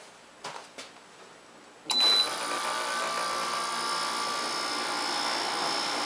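A portable air conditioner's compressor switches on about two seconds in with a brief loud surge, then runs with a steady whirring hum. The system is undercharged with R-410A refrigerant.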